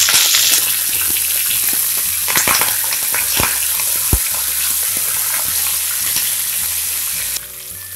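Tempering for tomato chutney: fresh curry leaves and coriander sizzling in hot oil with garlic, green chillies, mustard and cumin in a nonstick pan, stirred with a wooden spatula, with a few sharp clicks along the way. The sizzle drops off abruptly near the end.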